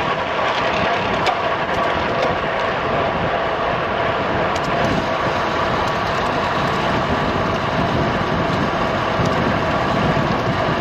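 Steady riding noise from a road bike on the move: wind rushing over the microphone, with a faint steady hum under it.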